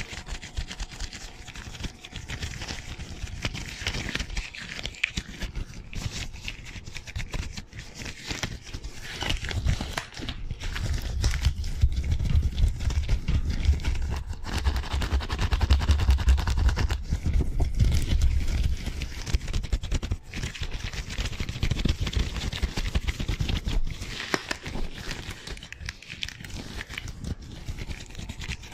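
Disposable rubber gloves rubbing and crinkling in fast hand movements close to a microphone: a dense run of rapid clicks and rubbing. From about ten seconds in until near the end a deep rumble joins in as the gloved hands work right over the microphone.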